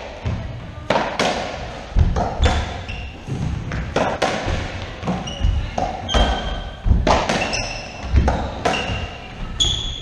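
Racquetball rally: a string of sharp, echoing hits as the ball is struck by racquets and smacks off the walls and floor of the enclosed court. Short high squeaks from sneakers on the wooden floor come in between the hits, more of them in the second half.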